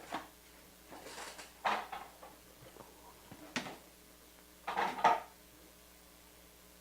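Objects being handled at a table: a few short rustles and clacks, the loudest about five seconds in.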